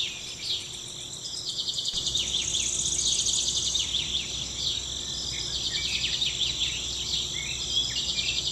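Several birds chirping in many short quick calls, over a steady high-pitched insect drone; a rapid buzzy trill sounds for about a second and a half a couple of seconds in.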